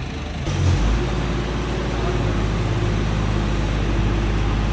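A vehicle engine running steadily, getting suddenly louder about half a second in and then holding an even low hum.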